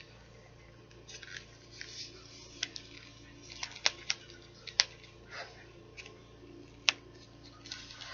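Packaging being handled: rustling and crinkling with a few sharp clicks and taps.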